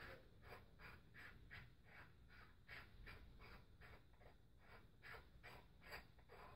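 Faint quick rubbing strokes, about three a second, from hands turning the knobs of a stereo zoom microscope.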